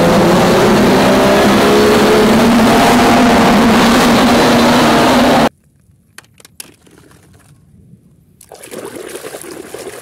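Lifted off-road Jeep's engine revving as it drives through a shallow river, water splashing around its tyres; the sound cuts off suddenly about five and a half seconds in. Then a few light clicks of plastic toys being handled, and from about eight and a half seconds, water sloshing in a basin.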